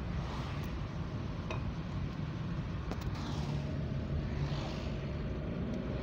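Car driving along a street: steady low rumble of engine and tyre noise.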